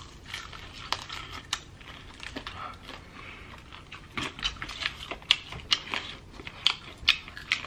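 Close-up eating sounds of chicken wings: irregular sharp clicks and wet crackles of biting, chewing and lip smacking, coming thicker and louder about halfway through.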